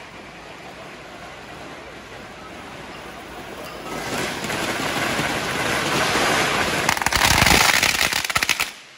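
Handheld fireworks spraying sparks with a hiss that grows louder about four seconds in, then a string of firecrackers going off in a rapid crackle near the end that stops just before the close.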